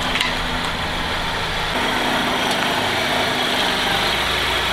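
2003 Honda Accord's engine idling steadily.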